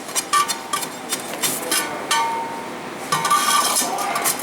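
Metal tools clinking and scraping against the furnace's lining form as refractory material is worked into the gap: a series of sharp clinks, some with a brief ring, and short scrapes.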